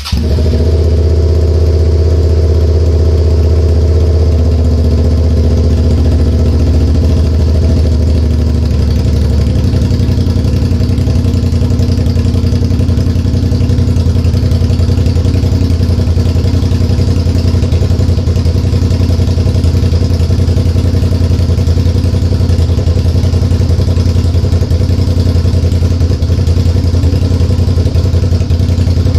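A 2008 Suzuki SV650's V-twin engine catches right at the start and then idles loud and steady, running with no muffler, open from the mid pipe. Its idle note settles a little after about eight seconds.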